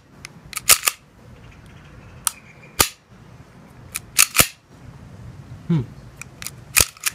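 Sharp metallic clicks and snaps from an airsoft Beretta M92A1 pistol being cocked and dry-fired with the magazine out: the slide worked back and the hammer dropping on each trigger pull. About a dozen clicks, several in quick pairs.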